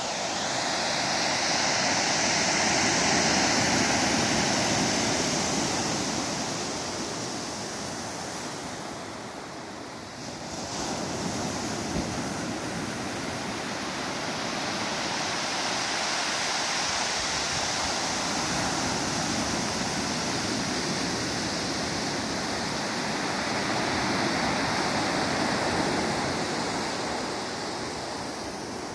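Ocean surf breaking and washing up the shore with the tide coming in: a steady rush that swells to its loudest a few seconds in, eases off around ten seconds, then builds again in slow surges.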